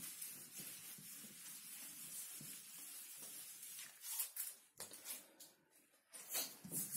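Whiteboard duster wiping marker ink off a whiteboard: a steady scrubbing hiss for about four seconds, then a few short rubs before it stops.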